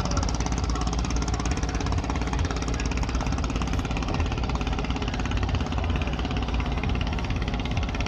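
An engine running steadily with a fast, even knocking beat.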